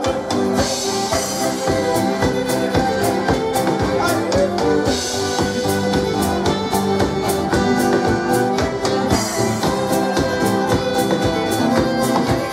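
Live band playing an instrumental passage on fiddle, accordion, acoustic guitar, double bass and drum kit, with a steady drum beat.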